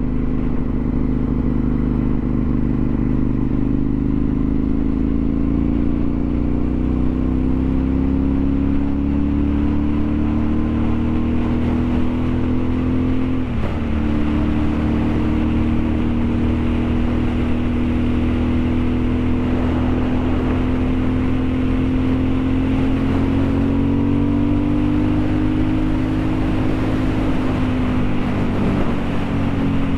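Vehicle engine running steadily on the road, its pitch slowly rising and falling, with a brief sharp dip in pitch about 13 seconds in.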